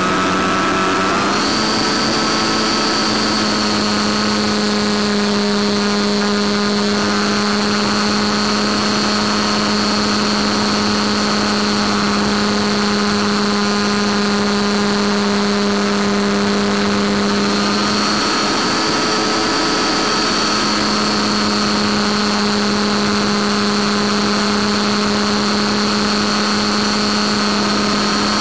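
Electric motor and propeller of a small FPV model airplane running steadily under power: a steady pitched hum with a high whine over rushing airflow. The pitch steps up slightly near the start and dips briefly about two-thirds of the way through.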